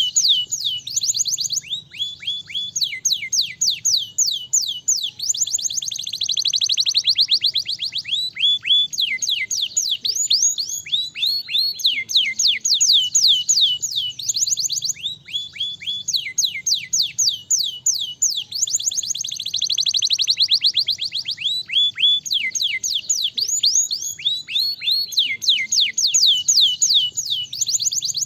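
Domestic canary singing a fast, unbroken song: runs of rapid, high whistled notes that each drop in pitch, with two stretches of especially quick, dense trilling.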